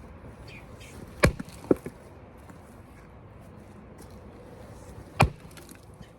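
An 8-pound splitting maul striking damp firewood blocks, two sharp blows about four seconds apart. The first blow is followed half a second later by a lighter knock.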